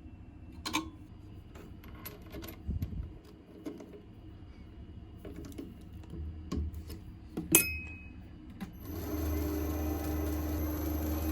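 A few sharp clicks and knocks of metal parts being handled. Then, near the end, a machine motor starts and runs steadily with a hum and a high whine.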